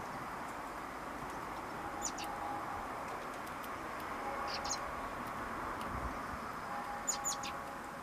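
Juvenile blackbird giving short, high begging cheeps: one about two seconds in, a pair about halfway, and a quick run of three near the end, over a steady background hiss.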